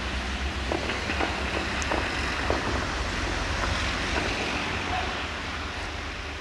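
Regio passenger train, hauled by an LDH diesel-hydraulic locomotive, rolling away along the track. It makes a steady low rumble with a few clicks of wheels over the rails in the first couple of seconds, and fades slowly toward the end.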